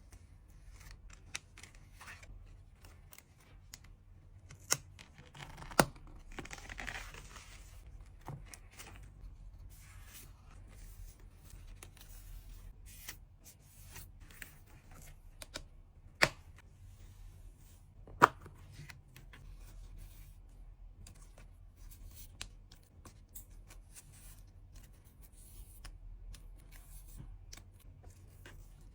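Hands packing trading cards and packaging materials: scattered sharp taps and clicks as items are handled and set down, with a longer tearing, rustling sound about six to seven seconds in.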